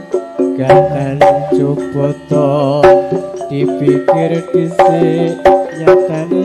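Live campursari band music: a pitched melody over sharp, irregular hand-drum strokes.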